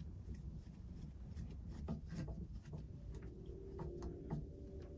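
Hand screwdriver driving small screws through a dust-curtain flange into a router carriage: faint rubbing with scattered light ticks.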